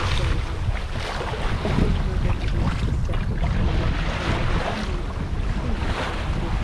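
Wind buffeting the microphone over the steady rush and splash of sea water around a small sailing yacht under way in a swell.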